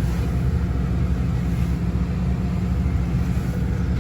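Paratransit bus engine running, a steady low rumble heard from inside the passenger cabin.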